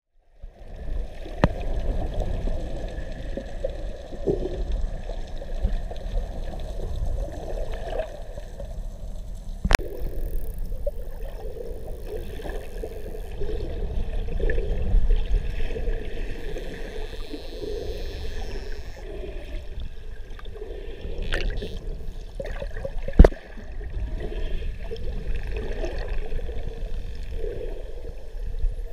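Muffled water noise picked up by a camera in an underwater housing: a low, steady wash with gurgling. A few sharp knocks break through, the loudest about 23 seconds in.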